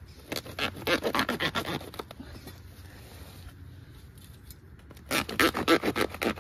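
Crackly scratching and scraping from a plastic seedling pot being handled and cut open at the bottom, in two spells with a quieter stretch between.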